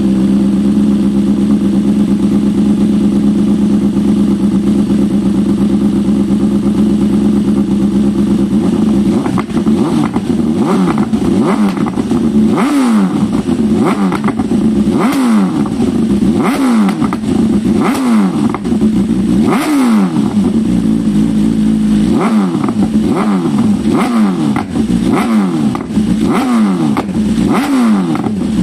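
BMW S1000RR superbike engine with an aftermarket exhaust silencer. For about the first nine seconds it runs at a steady speed, then it is blipped repeatedly: about a dozen quick revs, each rising sharply and falling back.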